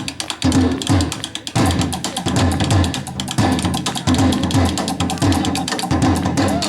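Korean traditional drums (buk) played in ensemble: deep booming drum strokes mixed with many sharp stick clicks in a fast, driving rhythm.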